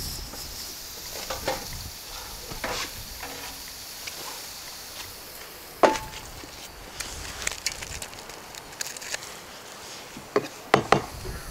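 Scattered sharp knocks and clicks, like wood being knocked or chopped, over a faint hiss. A louder knock comes about six seconds in, and a quick run of knocks near the end.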